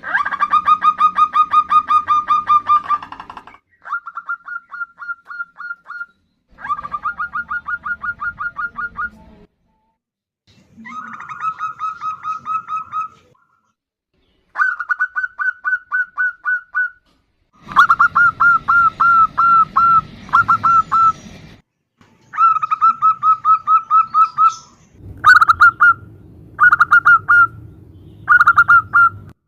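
Zebra doves calling, as a female calling a male: bout after bout of fast, evenly repeated coo notes, about ten a second. The bouts run from half a second to three seconds with short pauses between them, and the last few near the end are short.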